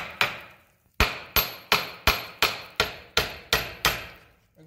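Hammer blows on the rusty rear hub and brake drum of a 1933 Ford banjo rear axle, each strike ringing briefly with a metallic clang. The blows come in a steady run of about three a second after a short pause near the start.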